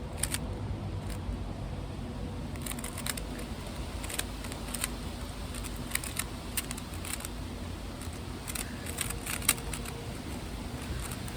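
Rubik's cube being turned fast in a speed solve: clusters of sharp plastic clicks and snaps as the layers are twisted, over a steady low rumble.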